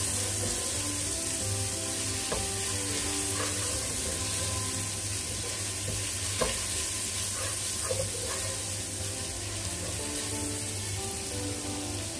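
Sliced onions and ginger-garlic paste sizzling steadily in hot oil in a pan while a slotted spatula stirs them, with a few light knocks of the spatula against the pan.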